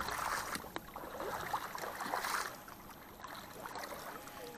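Faint splashing and sloshing of water, in soft swishing bursts near the start and about two seconds in, with a single sharp click just under a second in.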